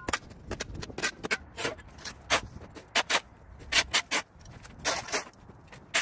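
Irregular scraping and scuffing strokes of a hand tool working through dirt and debris, a few a second, some coming in quick pairs.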